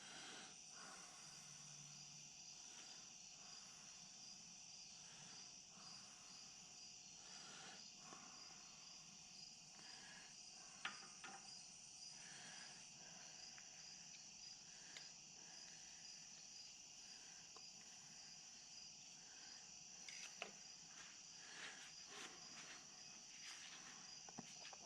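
Near silence with faint, steady high-pitched cricket trilling, and a few faint clicks now and then.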